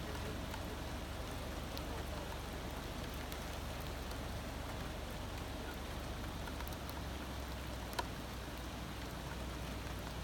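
Steady hurricane rain falling on a car, heard from inside, with a low rumble underneath and a single sharp click about eight seconds in.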